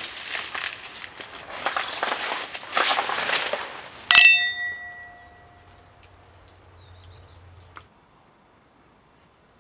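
Crackling, rustling noise, then a single struck metallic chime about four seconds in, ringing with several clear tones that fade over about two seconds. A faint low hum follows and cuts off with a click near the end.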